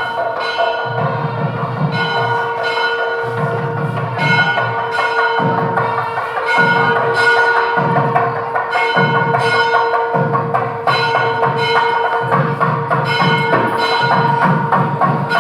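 Background music: a steady held tone with bell-like strikes over a regular percussion beat about once a second.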